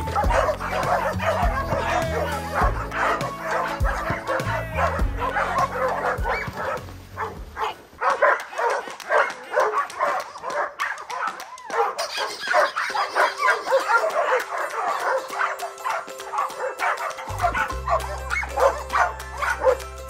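Several dogs barking and yipping in quick, overlapping calls over background music; the music's bass line drops out for about nine seconds partway through and comes back near the end.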